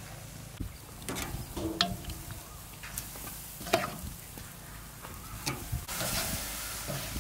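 Metal tongs clinking against a stainless steel bowl and a charcoal grill's grate as marinated meat is moved onto the grill, in a handful of separate clicks. The meat sizzles on the grate, the sizzle growing louder near the end.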